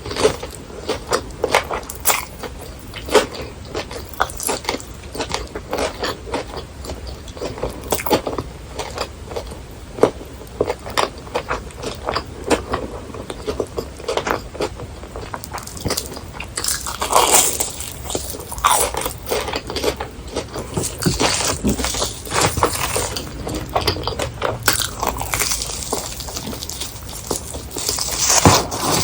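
Close-miked biting and chewing of crispy deep-fried food, a steady run of crunches and crackles that grows denser in the second half.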